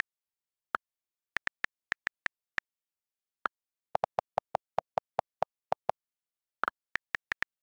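iPad on-screen keyboard key-click sounds: scattered single clicks as letters are typed. In the middle comes a steady run of about eleven evenly spaced, deeper clicks, about five a second, as the delete key erases text, then a few more letter clicks near the end.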